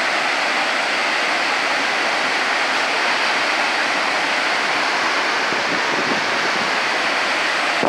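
Kravica waterfalls: many cascades pouring into a pool, a steady, unbroken rush of falling water.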